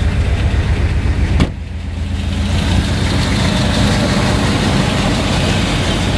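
1980 Mercedes 450SL's 4.5-litre V8 running at idle after a restart, with its warm-up regulator's control pressure brought into spec at 40 psi. A sharp click comes about a second and a half in, and a steady hiss builds up after it.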